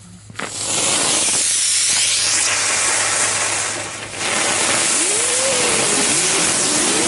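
Category 1 ground firework lit and burning with a loud, steady hiss as it sprays sparks, starting about half a second in and dipping briefly near the middle. From about five seconds a wavering tone rises and falls over the hiss.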